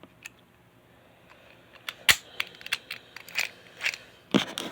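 Combination dial padlock being locked: after a quiet start, a run of sharp clicks and knocks from about two seconds in as the lock is handled and shut.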